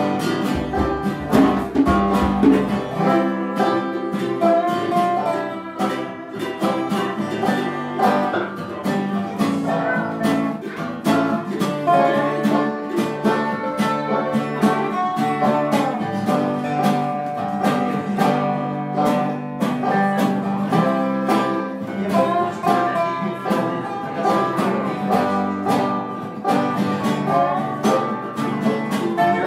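Live acoustic music on plucked string instruments: a busy run of quickly picked notes over steady lower notes, in a country or bluegrass style.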